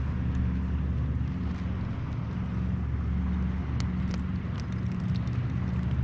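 A motor running at a steady pitch, giving a low, even hum, with small scattered ticks over it.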